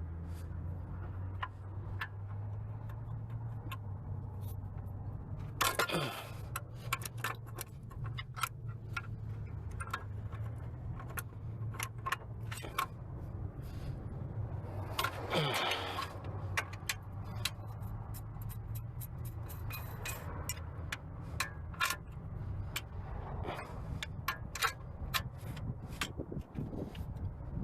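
Hand tools and loose metal parts clicking and clinking while parts are worked off a car engine, over a steady low hum. Two louder scraping sweeps that fall in pitch come about six seconds in and again about fifteen seconds in.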